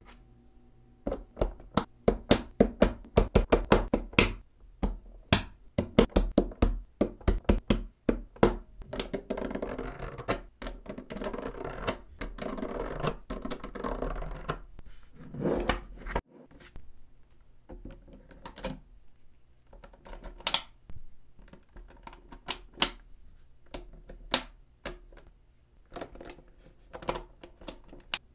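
Small magnetic balls clicking and snapping together as they are set into rows, in quick runs of sharp clicks, with a few seconds of continuous rattling around the middle.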